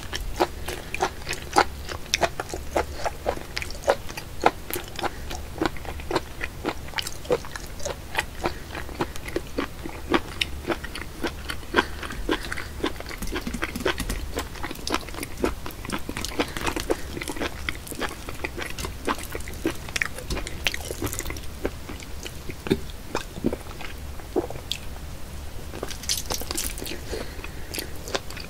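Wet, sticky clicking and smacking as a live small octopus (nakji) is handled with bare fingers and eaten raw, mixed with chewing. Near the end there is a brief slurp as a tentacle is sucked into the mouth.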